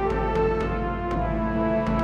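Background music over the end credits: a melody of held notes with a few light percussive ticks.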